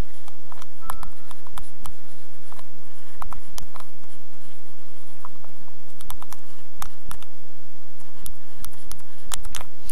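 Stylus tapping and scratching on a tablet while handwriting: a scattered series of light, irregular clicks and taps.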